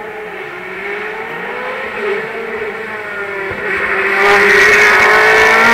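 Race car engine approaching at speed, revving up and down through the gears. It grows much louder about four seconds in as the car nears.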